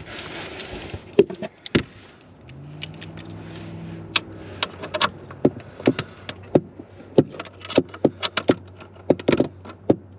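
Metal hand tool clicking and knocking against the bolts and rail of a camper slide's roller bearing mount: a run of sharp, irregular metal clicks. A faint steady low hum joins about two and a half seconds in.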